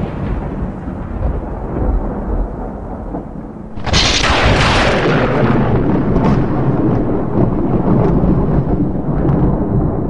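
Thunderstorm sound effect: a low rumble, then a sudden loud crack of thunder just before four seconds in that fades into a long rolling rumble with scattered crackles.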